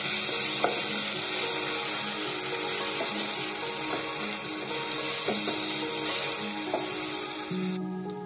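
Mashed roasted brinjal with onion, tomato and spices sizzling in oil in a non-stick frying pan on low flame while a spatula stirs it. The spatula scrapes and taps against the pan now and then. The sizzling stops suddenly near the end.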